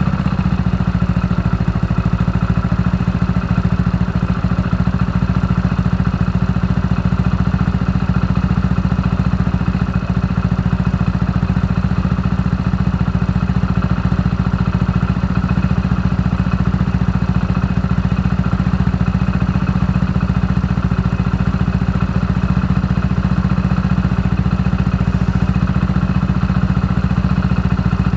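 Two-cylinder inboard engine of a passenger motorboat running at a steady speed under way: a low, even drone with a fast regular pulse that does not change.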